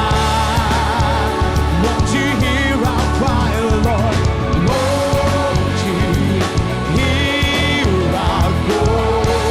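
Worship band music with long held, wavering sung notes over a steady full bass, no distinct words.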